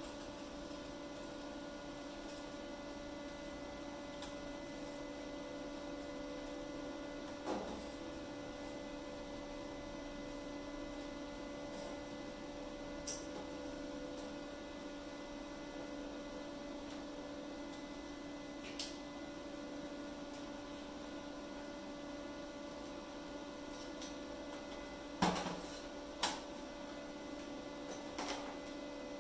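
A steady electrical hum, with a few brief light clicks scattered through it.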